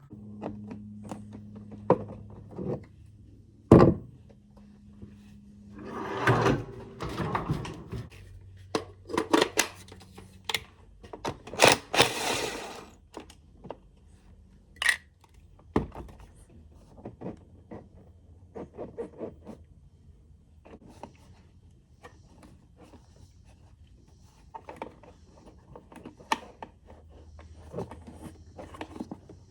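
Scattered knocks, clicks and scrapes of tools and small parts being handled while working on a generator's carburettor, with two short rushing spells about six and twelve seconds in. A faint steady low hum runs underneath.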